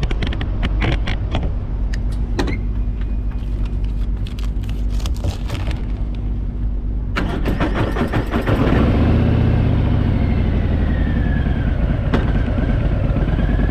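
Motorcycle engines running at low speed while moving off to board a ferry, with scattered clicks; about seven seconds in the engine sound suddenly gets louder and fuller.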